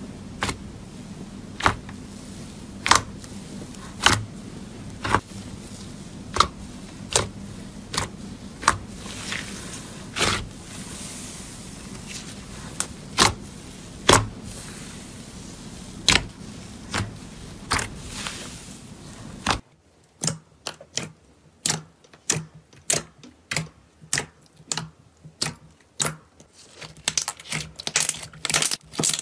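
Hands squeezing and stretching fluffy white snow slime, giving sharp crackles about once a second over a low hum. After a cut, hands pressing clear red slime give quicker sharp clicks, about two a second.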